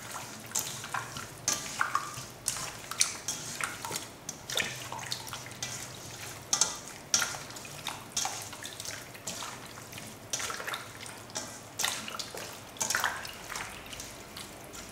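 Hands kneading raw chicken wing drumettes in a liquid soy-sauce marinade in a stainless steel bowl: irregular wet squelches and splats, several a second.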